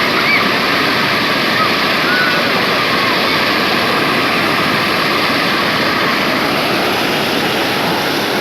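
Steady rushing water, a continuous even noise with no breaks.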